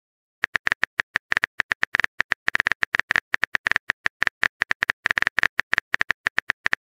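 Rapid, uneven keyboard-typing clicks from a texting app's sound effect, several taps a second, each a short tick with a bright ring at one pitch, as a chat message is typed out.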